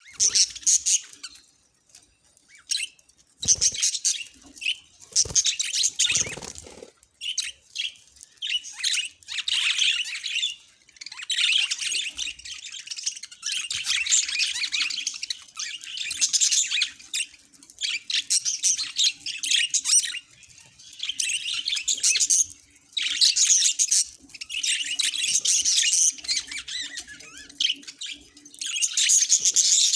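Budgerigar chatter: fast, high-pitched warbling and chirping in bouts of a few seconds with short pauses. A few low thumps sound between about 3 and 7 seconds in.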